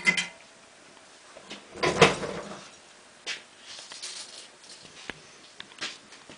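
Handling noise from work on bus wiring: scattered light clicks and knocks, with a louder rustling clatter about two seconds in.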